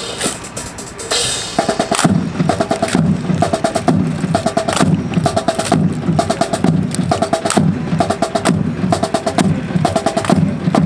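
Marching drum cadence for a rifle drill team. A few scattered clicks come first, then a steady repeating drum pattern starts about a second and a half in.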